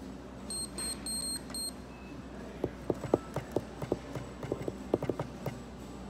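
Card payment terminal giving four short, high electronic beeps, then fingers tapping on it in a quick, irregular run of sharp clicks, louder than the beeps.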